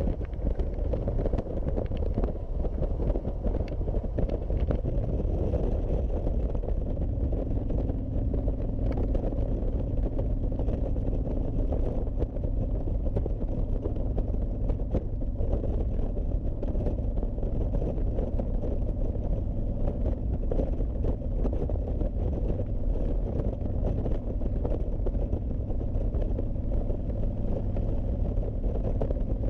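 Honda VTX1300C motorcycle riding at a steady speed: the V-twin engine's low rumble mixed with constant wind rush over the microphone, and a steadier engine hum coming in about seven seconds in.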